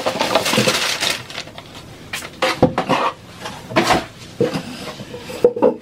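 Rustling and handling noises at a table, with several sharp knocks spread through it, among them a plastic chair being moved.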